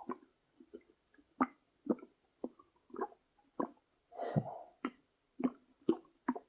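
Human stomach gurgling as the belly is pressed: a string of short gurgles about two a second, with a longer one about four seconds in.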